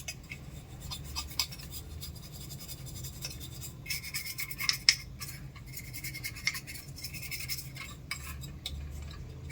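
Small toothbrush scrubbing the plastic blades and hub of an induction cooktop's cooling fan: light, irregular bristle scratching, with a few sharper clicks about four to five seconds in.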